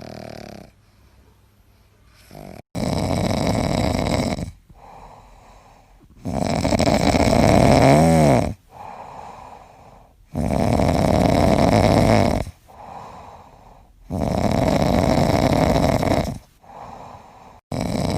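A dog snoring loudly in its sleep: four long, loud snores about four seconds apart, with a softer snore between each.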